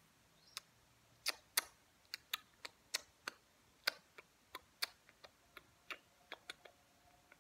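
A series of about twenty short, sharp clicks at irregular spacing, from a fraction of a second to about a second apart.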